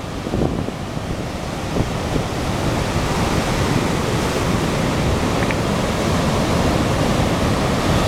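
Rough sea surf breaking and churning over a rocky shore and concrete breakwater blocks, a continuous roar that grows slightly louder toward the end, with wind rumbling on the microphone.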